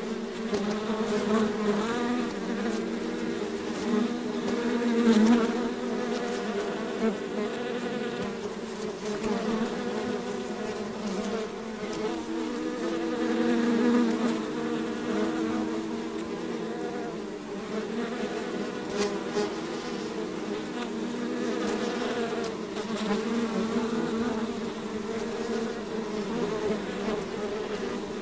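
A swarm of bees buzzing: many wavering hums overlapping in a steady drone that swells in loudness now and then.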